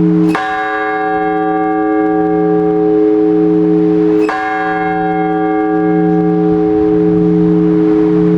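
A large Orthodox church bell tolled in slow, single strokes for the blagovest before the all-night vigil. It is struck twice, about four seconds apart, and each stroke rings on with a low hum that swells and fades in slow waves.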